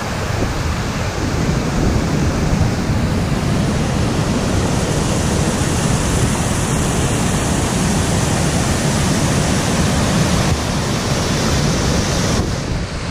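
Water rushing steadily over a small river waterfall and cascades, a loud, even rush close to the microphone.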